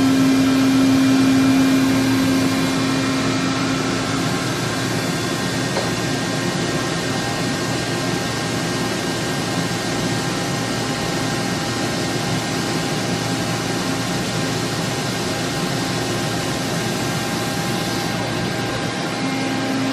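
Toshiba BTD-200QF CNC horizontal boring mill running, a steady machine hum with several faint high whines, as its rotary table slowly turns. A strong low hum drops away about four seconds in and returns near the end.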